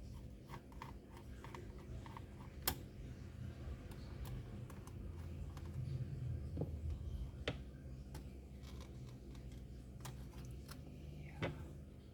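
Scattered small clicks and taps of hands and tools working on the CPU cooler of an opened laptop, with a few sharper clicks.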